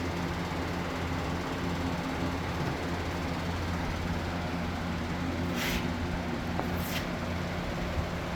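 Steady low mechanical hum with a few even pitched tones, like a running fan or motor, broken by two short high hisses about five and a half and seven seconds in.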